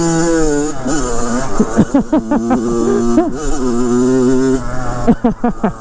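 2007 Kawasaki KX100's 99cc liquid-cooled single-cylinder two-stroke engine being ridden, held steady for stretches and revved quickly up and down in between, with several fast rev swoops near the end. It is being lugged below its power band.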